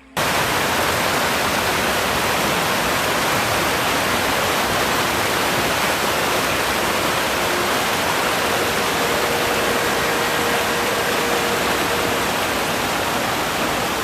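Water pouring over a river's stone weir: a loud, steady rush that cuts in suddenly right at the start.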